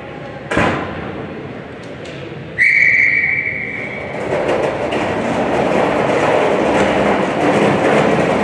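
A sharp knock about half a second in, then a referee's whistle blown once, a steady shrill tone lasting about a second and a half, followed by a busy mix of players' and spectators' voices.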